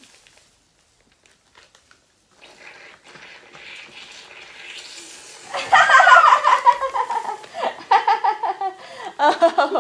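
Near silence, then a faint hiss, then about halfway through loud, high excited vocalising from a child with laughter, and a woman laughing along.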